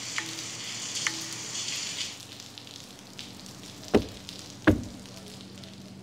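Steady hiss of falling rain that eases a little about two seconds in, followed near the end by two sharp knocks.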